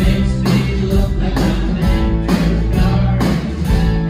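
Live rock band playing a song: drums keeping a steady beat of about two hits a second under guitar and keyboards, with a man singing lead.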